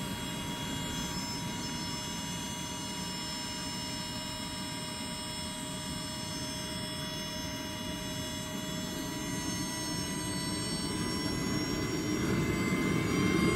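SWIWIN 300 RC micro turbine engine running with a steady whine of several high tones over a rushing noise. Over the last few seconds the whine slowly climbs in pitch and grows louder as the turbine spools up.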